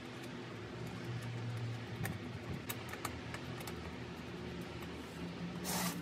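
Faint metallic ticks as a nut is worked by hand onto a stud on the underside of a motorcycle solo seat, over a steady low hum; a short scraping rustle near the end as the seat is handled.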